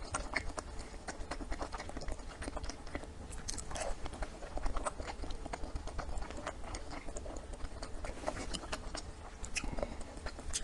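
Close-miked chewing and biting of food, a steady stream of quick wet mouth clicks and crunchy snaps.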